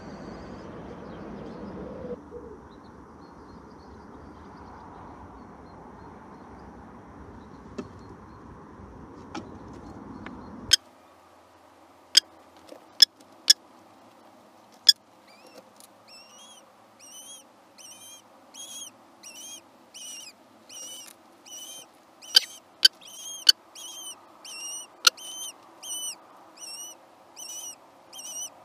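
Downy Eurasian kestrel chicks in a nest box giving a run of short, high-pitched begging cheeps, roughly one or two a second, as the female feeds them. Scattered sharp clicks break in, and a steady outdoor rumble cuts off about ten seconds in.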